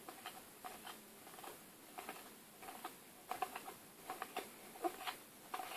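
Stack of Match Attax trading cards being flicked through one by one in the hand: a faint run of soft, irregular card-on-card clicks and flicks that come quicker and a little louder in the second half.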